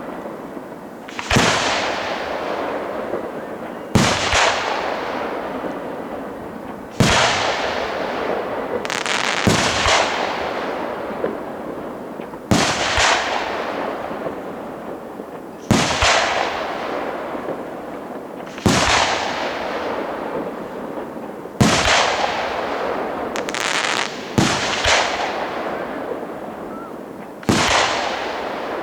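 Aerial firework shells bursting one after another in a professional display, a sharp bang about every three seconds, each followed by a long hissing tail that fades away before the next; two bursts come close together about ten seconds in and again near twenty-five seconds.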